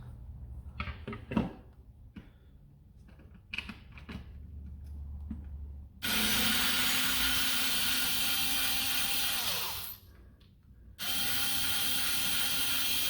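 Light clicks and handling of small parts, then a small cordless drill-driver runs twice, for about four seconds and then about three, with a steady whine that winds down as each run stops. It is tightening hardware on a part that was not sitting flush.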